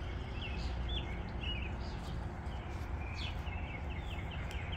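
Outdoor background noise: small birds chirping in short, quick repeated notes, busiest from about three seconds in, over a steady low rumble.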